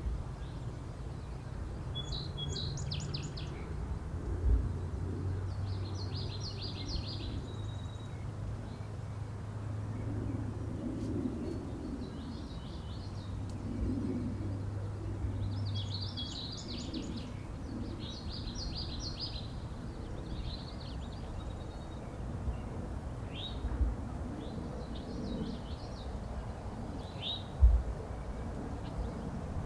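Small songbirds singing short, quick phrases every few seconds over a low steady hum, with a few soft thumps and a sharper knock near the end.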